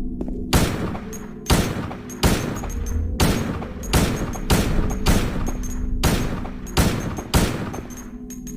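Beretta 92FS Centurion pistol fired about ten times, single shots at an uneven pace of roughly one every half second to a second, each with a short ringing tail, over a steady low background drone.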